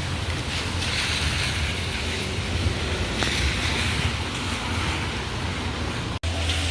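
Steady low rumble and hiss of a car driving on a wet road, with the sound of tyres on rain-soaked pavement. It cuts out for an instant about six seconds in.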